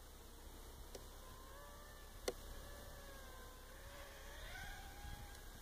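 Faint whine of a flying model aircraft's motor, its pitch slowly wandering up and down as the plane banks. There is a sharp click a little over two seconds in.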